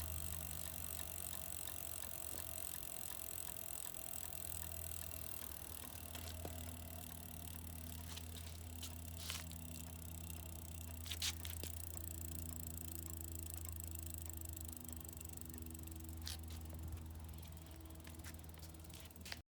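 Rear wheel of an RNC3 road bicycle turning, with a steady low hum and a few sharp clicks, about 9, 11, 16 and 18 seconds in. This is the abnormal noise the rear wheel is making.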